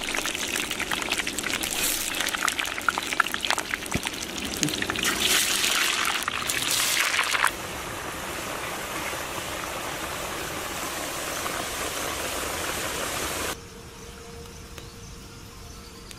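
Potato fries deep-frying in a large kadai of hot oil: a dense sizzling with many crackles that drops to a steadier, softer hiss about halfway through, and softer again near the end.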